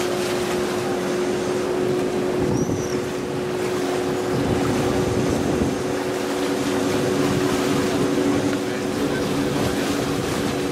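Vaporetto water bus engine running steadily while under way, a constant low hum over a wash of noise, heard on board.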